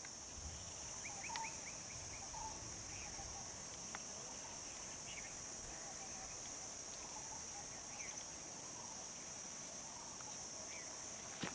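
Faint steady high-pitched drone of insects, with scattered short bird chirps and a single sharp click near the end.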